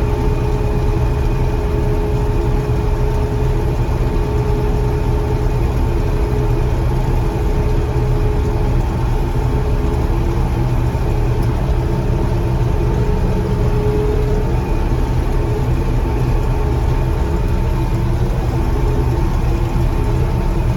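John Deere 4400 combine running steadily: an even engine drone with a constant higher tone over it.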